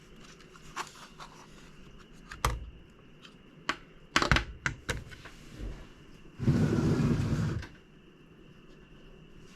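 Scattered light clicks and taps of a screwdriver and small screws and parts being handled, with a quick cluster of clicks around the middle, then a rustling scrape lasting about a second.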